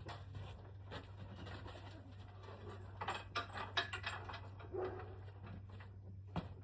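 Pigeons cooing over a steady low hum, with a few short knocks and clatter partway through.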